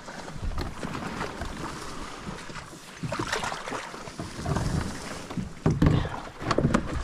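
Dry cattail and reed stalks rustling, crackling and scraping against a kayak and the camera as the kayak pushes through them, with a few dull bumps near the end.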